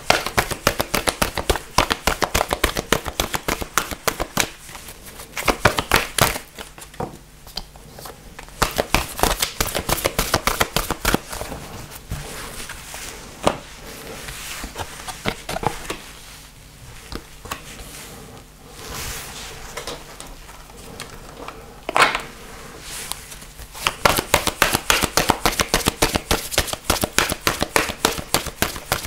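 A deck of angel oracle cards being shuffled by hand: quick runs of card flicks and slaps, broken by short pauses, with a single sharper snap about 22 seconds in.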